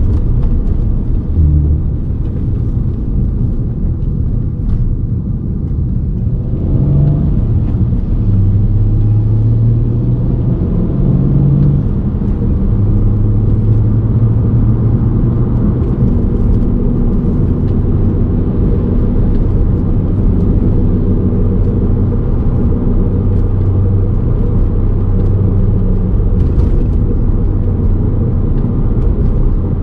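Volkswagen Golf MK5 R32 driving, heard from inside the cabin: a steady low rumble of road, tyre and VR6 engine noise, with the engine note shifting several seconds in. The low rumbling (gorogoro) is the noise of a worn wheel hub bearing.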